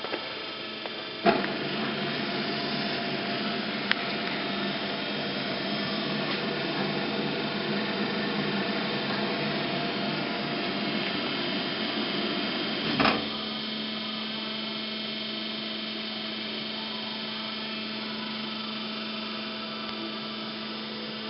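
Meba Eco-line bandsaw running: a sharp click about a second in as it starts, then a steady machine hum with several fixed tones. A clunk past the middle is followed by a quieter, steady hum.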